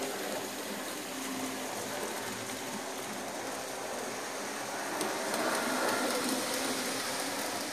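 Several N-gauge model trains running on the layout: the steady running noise of small motors and wheels on track, getting louder about five seconds in as a train passes close.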